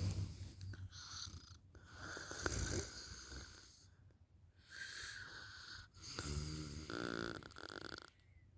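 A sleeping woman snoring: a series of separate snoring breaths, one of them, about two-thirds of the way in, a fluttering, rattling snore.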